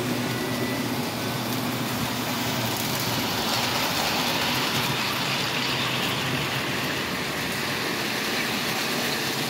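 O gauge model trains running on three-rail track: a steady clatter and rumble of wheels and motors, growing louder in the middle as a train passes close by, then easing.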